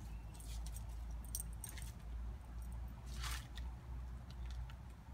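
Dog nosing through dry fallen leaves: light crinkling and clicking in the first two seconds, then one short, louder burst of rustling about three seconds in, over a low steady rumble.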